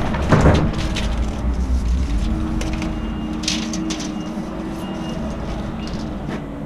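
Footsteps and small knocks on an OSB plywood subfloor as a tape measure is pulled out and handled, over a low steady mechanical drone with a faint hum that eases off near the end.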